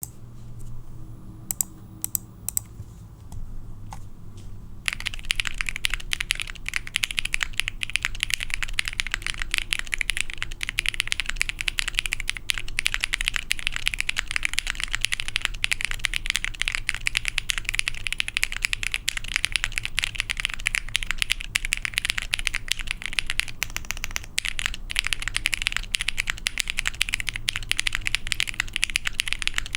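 Ai03 Vega custom mechanical keyboard, with lubed and filmed Penyu switches on a half FR4 plate and GMK keycaps, being typed on. A few separate keystrokes come first, then fast continuous typing from about five seconds in.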